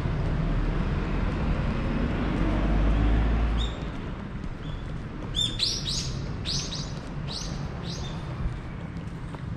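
Small birds chirping: a quick run of about five high calls, each falling in pitch, a little past the middle, with a few single chirps around it. Under them, a low rumble fades out at about four seconds in.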